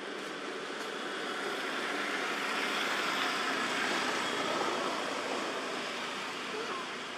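A vehicle passing: a rushing noise that builds to its loudest about halfway through and then fades.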